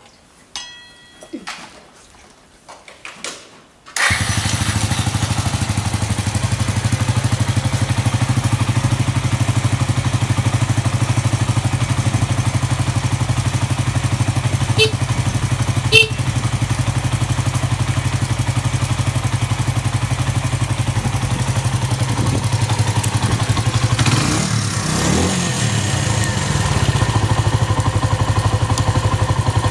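1997 Suzuki Volty's single-cylinder engine started on the electric starter, catching at once about four seconds in and then idling steadily. Around 25 seconds in the engine note rises and falls once before settling back to idle.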